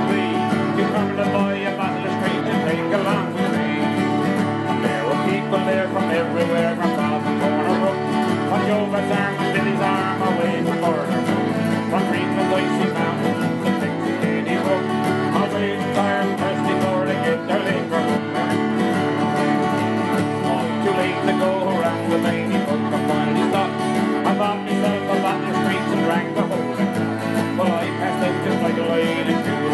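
Music from a local band playing a country-bluegrass song with plucked strings.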